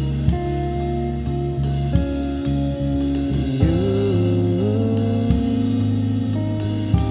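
Background music: an instrumental passage of a song, with guitar and a steady drum beat.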